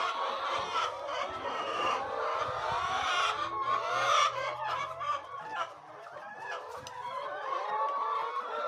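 A flock of chickens clucking and calling, with many calls overlapping throughout.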